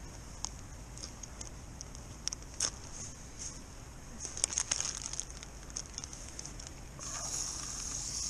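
Plastic bag and paper butter wrapper crinkling and rustling as hands handle a block of butter, with scattered small clicks, a cluster of them about four to five seconds in.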